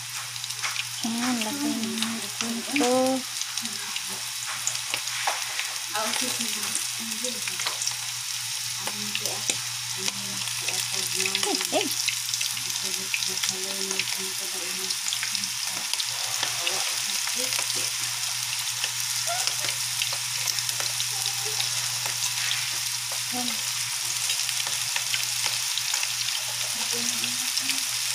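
Battered squid rings (calamari) deep-frying in hot oil in a pan: a steady dense sizzle and crackle, with clicks of metal tongs as the rings are moved about in the oil.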